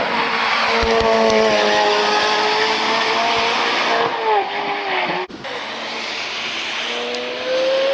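2023 C8 Corvette Z06's 5.5-litre flat-plane-crank V8 at high revs on track, its pitch easing slightly, dipping briefly around four and a half seconds in, then after a sudden cut climbing steadily as the car accelerates.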